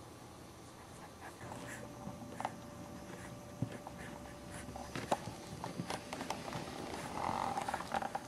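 Boxer puppy snuffling and panting as it noses about, with scattered light clicks and taps.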